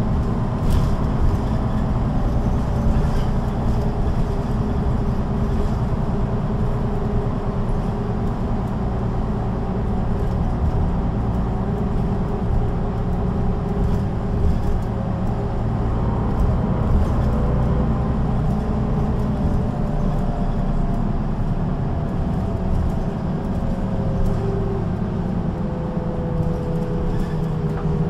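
Solaris Urbino 12 III city bus's diesel engine and ZF automatic gearbox running steadily, with a whine that slowly falls in pitch near the end.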